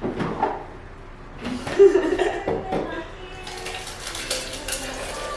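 Glassware and dishes clinking and clattering, with one loud clink about two seconds in. From about three and a half seconds in, a steady hiss of a drink being poured.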